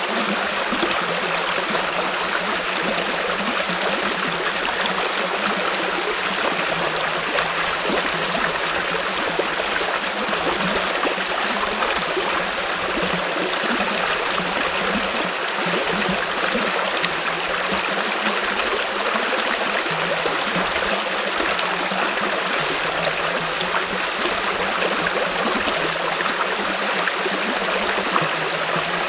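Steady rushing and trickling of a nearby stream, an even hiss that does not change.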